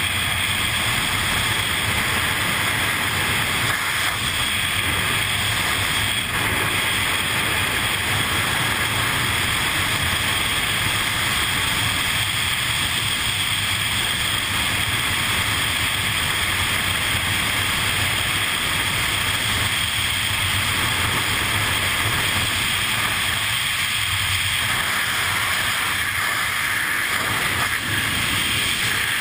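Steady rush of wind over a helmet-mounted camera's microphone during wingsuit freefall, loud and unbroken.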